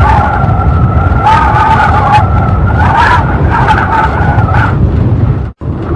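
Strong wind gusting, with a heavy low rumble and a wavering high whistling howl over it. The sound cuts out abruptly for a split second near the end, then resumes.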